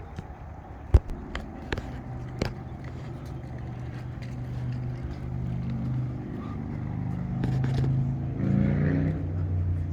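A few sharp knocks about a second in, then a motor vehicle's engine running, its low hum growing louder toward the end.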